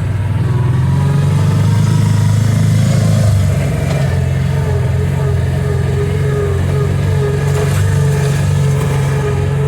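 Kawasaki Teryx 800 side-by-side's V-twin engine running steadily while driving at low speed along a trail, with a slight change in engine note about three seconds in.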